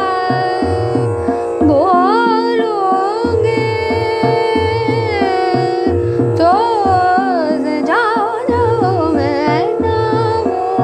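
A woman singing a Hindustani classical chhota khayal in Raag Chandrakauns, gliding between held notes and breaking into a quick wavering run near the end. She sings over a steady drone and a repeating tabla rhythm.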